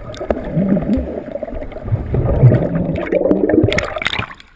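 Muffled underwater sound from a GoPro dipped in a swimming pool: water gurgling and sloshing around the camera, with a muffled, wavering voice heard through the water. It fades away near the end.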